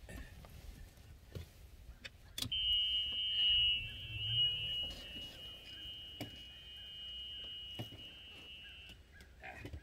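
A click, then a small utility vehicle's electronic warning buzzer sounding one steady high tone for about six seconds before it stops.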